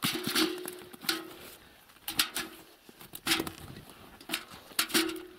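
Fish dropped one by one into a metal bucket, each landing with a sharp knock and a short ring from the bucket's side, about every half second to a second.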